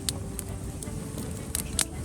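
Wood campfire burning, crackling with scattered sharp pops, a cluster of louder pops near the end, over a low steady rumble of the flames.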